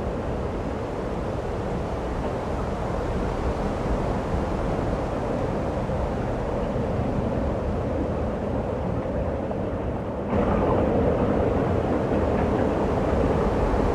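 Steady rushing of snowstorm wind, which turns abruptly louder about ten seconds in.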